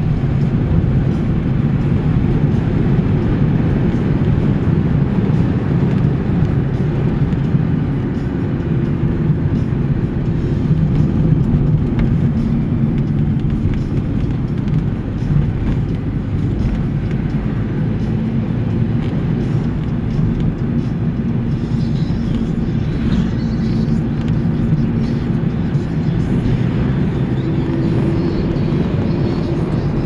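Engine and road noise heard from inside a moving van's cab: a steady low rumble with a faint hum that shifts slightly in pitch as it drives.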